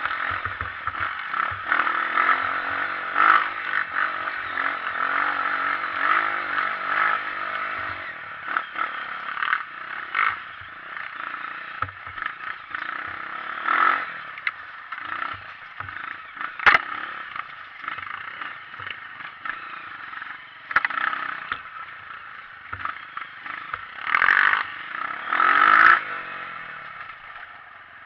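Honda CRF230 trail bike engine, an air-cooled single-cylinder four-stroke, running and revving up and down on a dirt trail, with frequent short knocks and rattles. The loudest rev surges come near the end.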